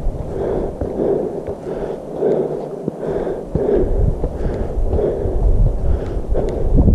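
A hiker's heavy, rhythmic breathing while climbing, about three breaths every two seconds, with wind rumbling on the microphone.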